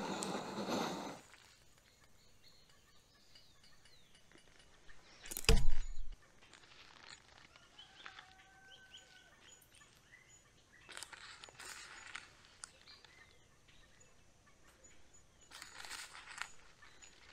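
A canister gas stove's burner hisses until about a second in, when the valve is turned. A single loud knock comes about five seconds in. A plastic zip-lock bag of coffee crinkles in two short bursts as it is opened and handled, with faint bird calls between.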